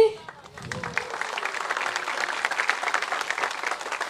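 Theater audience applauding, a dense patter of many hands clapping that builds up within the first second, with voices mixed in.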